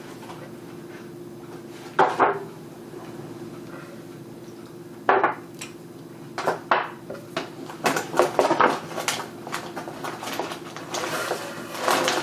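Metal utensil knocking and scraping against cookware: a couple of separate clinks, then a busy run of quick taps and scrapes in the second half, over a steady low hum.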